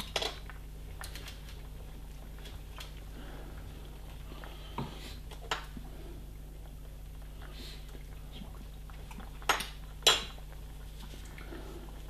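A spoon knocking against the side and rim of a steel soup pot as the soup is stirred: a few short, sharp knocks in pairs, just after the start, about five seconds in and about ten seconds in, the last pair the loudest, over a steady low hum.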